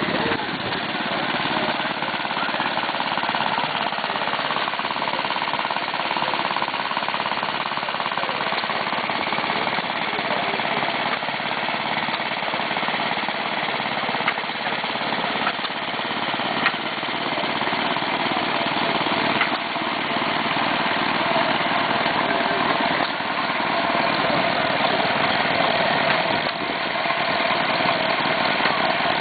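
Steam engine running steadily, a continuous mechanical clatter with a few faint clicks.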